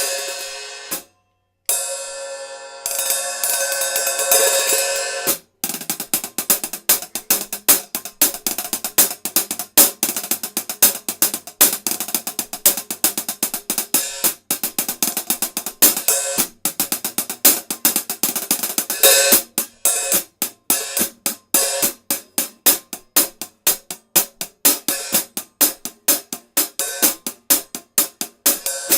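14-inch Sabian AA hi-hat cymbals being played. For the first few seconds they ring open, cut off briefly about a second in. Then comes a steady pattern of short, crisp closed strokes with an occasional open accent.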